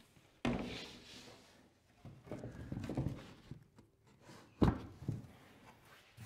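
Crosscut sled base board set down onto a cast-iron table saw top with a thud, then shifted and slid on its runners in the table's slots, rubbing and scraping. There is a sharp knock a little past halfway and a smaller one just after.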